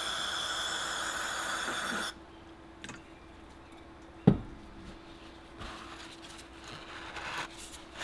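Aerosol carburetor cleaner spraying into a rusty carburetor float bowl: one steady hiss of about two seconds that cuts off sharply. A little after four seconds comes a single sharp knock, the loudest sound, then faint rubbing.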